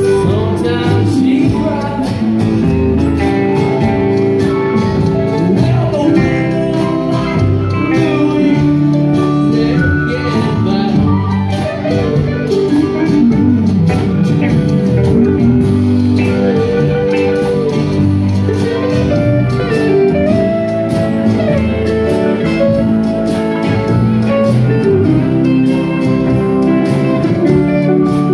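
Live band playing a blues-rock song on electric and acoustic guitars with drums, amplified through a PA.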